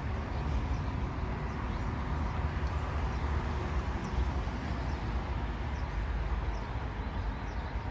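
Steady low rumble and hiss of outdoor background noise, with a few faint ticks.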